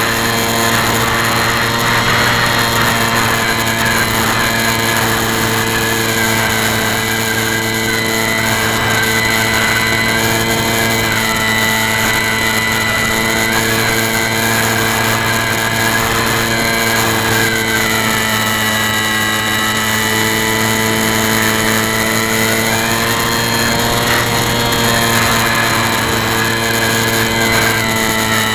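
Model airplane's motor and propeller running steadily, heard through the plane's own onboard camera. It is a constant buzzing whine with a slight wavering in its upper pitch.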